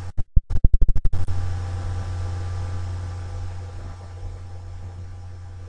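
A steady low electrical hum and hiss in the recording, with rapid crackling dropouts where the sound cuts in and out during the first second.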